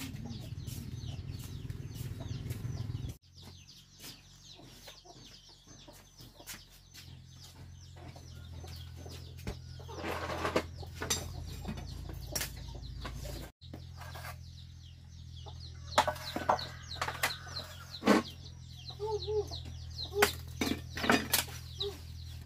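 Domestic chickens clucking, with several sharp knocks and cracks of firewood sticks being handled at a wood-fired hearth, loudest in the second half.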